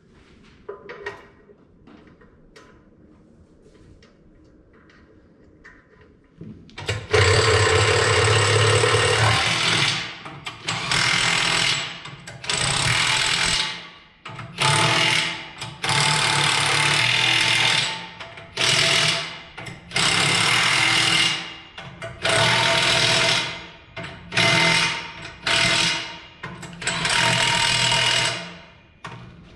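Impact wrench running nuts on a tractor's dual-wheel mounting in about a dozen hammering bursts of a second or two each, starting about seven seconds in. Before that, only faint clicks of parts being handled.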